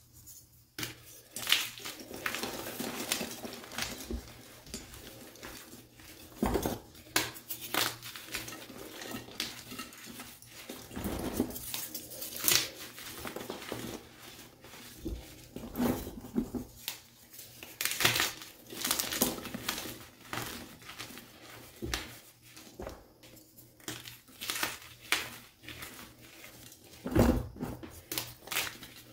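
Blocks of Picsil gym chalk, plain and dyed, crushed and squeezed by bare hands: continual dry crunching and crumbling, with sharp snaps each time a block cracks apart.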